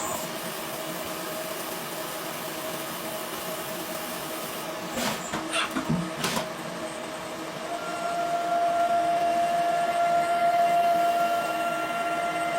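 CNC machine tool running with a steady mechanical whine over a noisy hum. A few sharp knocks come about five to six seconds in, and from about eight seconds the whine grows louder and steadier.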